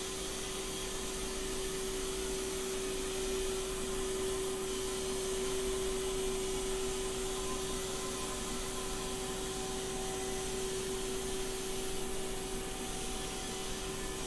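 Haas EC-400 horizontal machining center running under test: a steady whine held at one pitch over an even hiss, with fainter higher tones joining about two-thirds of the way through.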